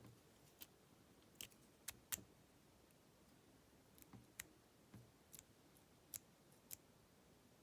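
Faint, irregular small metallic clicks of a pick or blank key and a shim working the pin stacks of a lock cylinder, as the pins are lifted and the shim is pushed in between the plug and the shell during core shimming.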